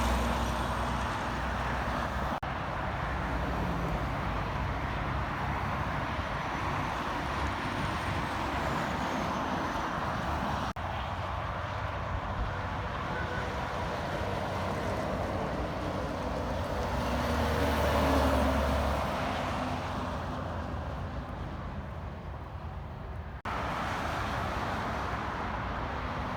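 Road traffic going by: a steady wash of tyre and engine noise from passing vehicles, with one vehicle's low rumble swelling louder and fading away about 18 seconds in. The sound changes abruptly three times, where the recording is cut.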